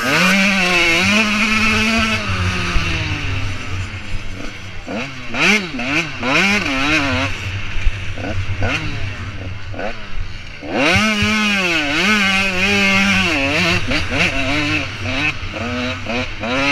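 85cc two-stroke motocross bike's engine revving hard through the gears, its pitch climbing and dropping again and again as the rider works the throttle, with a brief dip about ten seconds in before it climbs and holds high.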